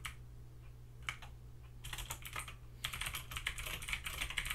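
Typing on a backlit computer keyboard: a few keystrokes about a second in, a short run near the middle, then fast continuous typing for the last second and a half.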